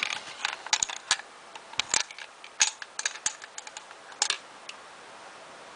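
Irregular small clicks and taps of paintball marker parts being handled during reassembly, stopping about three-quarters of the way through.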